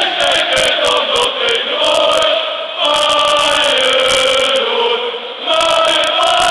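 A stadium crowd of football supporters singing a chant together in long held phrases, with brief breaks about three and five and a half seconds in.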